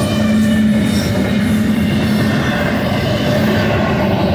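Double-stack intermodal well cars of a freight train rolling past: a steady, loud rumble of steel wheels on rail, with steady tones sounding over it.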